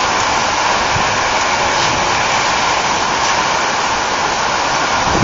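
Thunderstorm rain falling steadily as a loud, even hiss, with no thunder heard.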